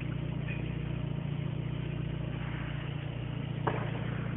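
Car engine idling, heard from inside the cabin as a steady low hum. A single distant firework bang comes about three and a half seconds in.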